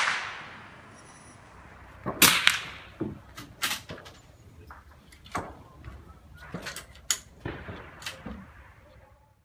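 Irregular sharp cracks of .22 rimfire rifles firing on the range, one shot after another at uneven gaps. The loudest pair comes about two seconds in, and fainter shots follow.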